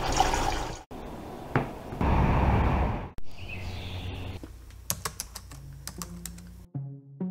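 A few short bursts of background noise broken by abrupt cuts, then a run of quick, irregular clicks like typing on a computer keyboard. Music with plucked or struck notes comes in near the end.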